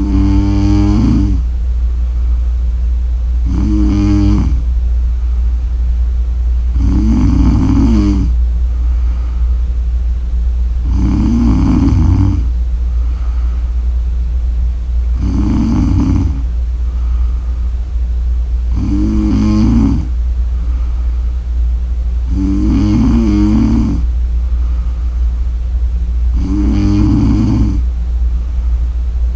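A woman snoring in her sleep: eight snores, each about a second long, coming roughly every three and a half to four seconds, over a steady low hum.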